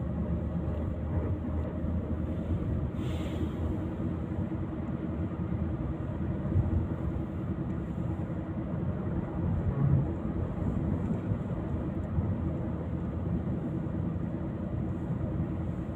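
Steady engine and road noise of a road vehicle on the move.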